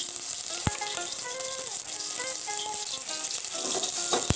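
Oil and melting butter sizzling gently in a stainless steel pan on a gas burner, with two light knocks, about a second in and near the end as the pan is handled. A soft background tune plays.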